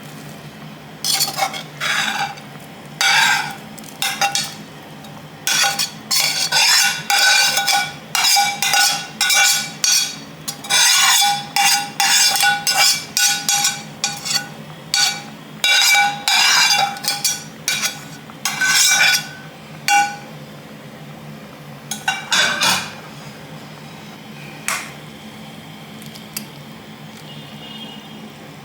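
Metal spoon scraping and clinking against a cooking pan in repeated strokes, stirring sautéed vegetables into a thick, boiling white sauce, each stroke with a short metallic ring. The stirring stops about 23 seconds in, leaving a steady low hum.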